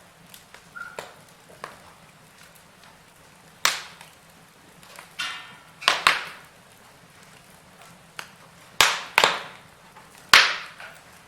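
Firewood burning in a fireplace, crackling with scattered small ticks and several sharp, loud pops that die away quickly, two of them close together about six seconds in and the loudest near the end.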